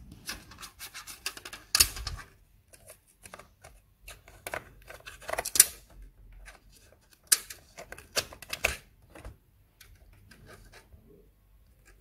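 A DDR4 SO-DIMM laptop memory module being fitted into its slot under a thin plastic insulating sheet: scattered clicks, scrapes and crinkles of handling, with a few sharper clicks.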